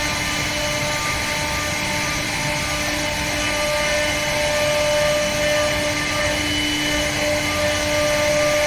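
CNC router machine running: a steady whine with several held tones over a broad hiss.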